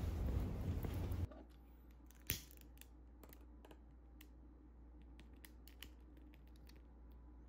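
Steady outdoor traffic rumble that cuts off abruptly a little over a second in. Then, in a quiet room, a long-nose utility lighter gives one sharp ignition click, followed by scattered small clicks and ticks as it lights a candle.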